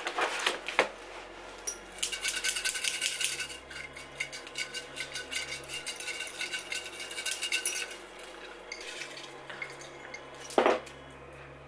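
A hand-held container shaken hard, making a fast clinking rattle for about five seconds that trails off into lighter clicks, then a single sharp knock near the end.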